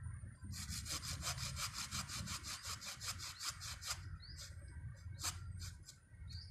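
Hand saw cutting through the thick root of a dug-up loa (cluster fig) tree. It runs in quick, even strokes, about six a second, for about three seconds, then gives a few separate strokes near the end.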